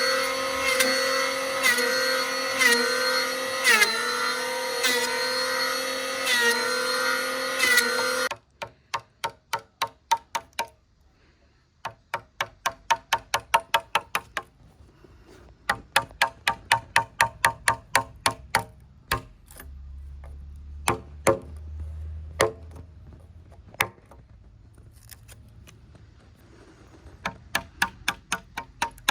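An electric power tool's motor runs loudly, its pitch dipping under load about once a second, and cuts off suddenly about eight seconds in. It is followed by runs of rapid hammer blows on wood, about four or five a second, with pauses between the runs.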